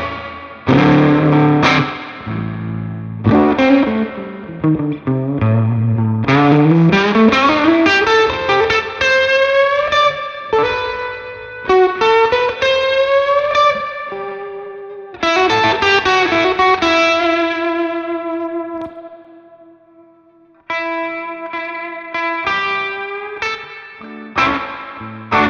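Ivison Dakota electric guitar with Firebird-style pickups played through a Magnatone Twilighter amp: single-note blues-rock lines with notes sliding up and down in pitch. Near the end a long held note dies away before the playing picks up again.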